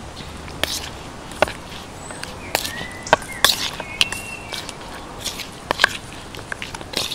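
Spoon and hands mixing raw chicken pieces in spice marinade in a plastic bowl: irregular clicks, taps and scrapes of the spoon against the bowl.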